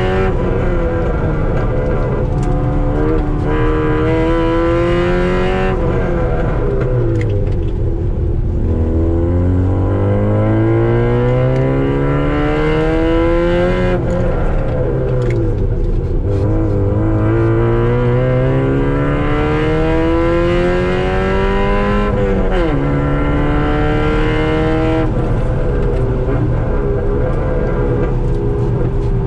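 Car engine heard from inside the cabin while lapping a race track, pulling up through the revs in long climbs and dropping back sharply about four times as the driver lifts off for corners.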